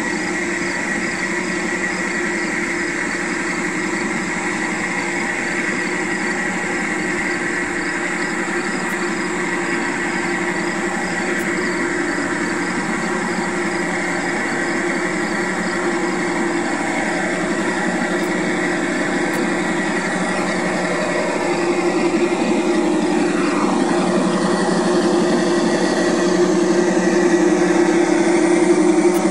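G-scale model SD45 diesel locomotives and their train running on garden railway track: a steady hum of motors and wheels on the rails, growing louder over the last few seconds as the train comes close.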